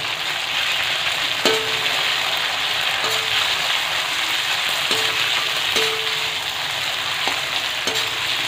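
Marinated chicken pieces sizzling steadily in hot oil in a kadai, with a spatula stirring them and knocking against the pan about six times, each knock leaving a short ring.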